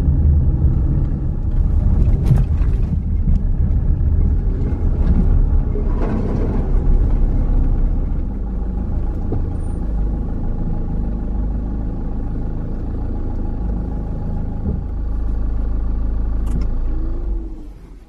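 Car engine and road noise heard from inside the cabin while driving, a loud, steady low drone that eases slightly about eight seconds in and drops away sharply near the end as the car comes to a stop.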